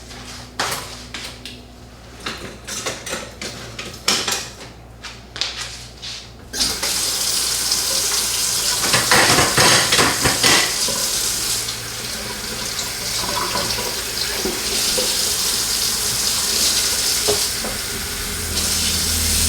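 A few seconds of scattered clicks and light clattering, then water running steadily from about six seconds in.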